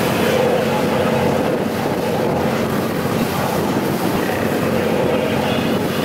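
Tour boat's engine running steadily as the boat cruises along, a continuous even drone mixed with the wash of water past the hull.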